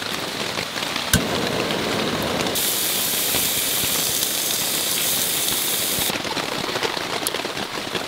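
Heavy rain falling on a camping tarp, a steady patter, with one knock about a second in. From about two and a half to six seconds in, a loud high hiss comes in over the rain and cuts off abruptly.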